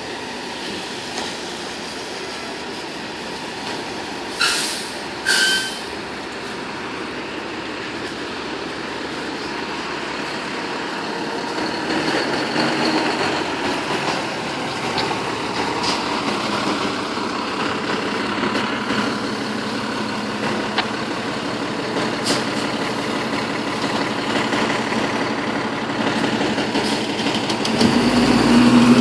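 A fire engine's diesel engine runs as the rig pulls out. Two short, loud hisses of air come about four and five seconds in, typical of the air brakes releasing. The engine grows louder from about twelve seconds in as the truck rolls out into the street.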